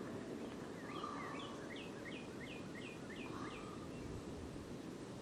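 A small songbird singing a run of about eight quick down-slurred notes lasting about three seconds, over steady low background noise.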